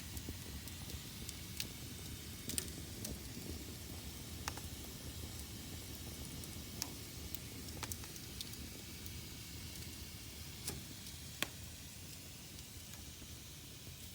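Fire burning in a fireplace: a steady low rumble and hiss with sharp crackles and pops every second or two, the loudest late on.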